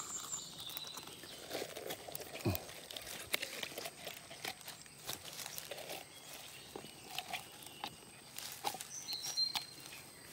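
Scattered small knocks, scrapes and rustling from hands working a plastic latex collection cup at the foot of a rubber tree and pulling the coagulated rubber out among leaves and undergrowth. A few brief high chirps near the start and again near the end.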